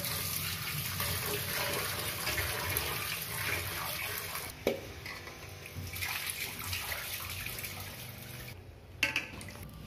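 Tap water running and splashing into a steel pot as hands rub and rinse raw fish pieces, with one sharp knock about halfway through. Near the end the water is tipped off and the sound drops away.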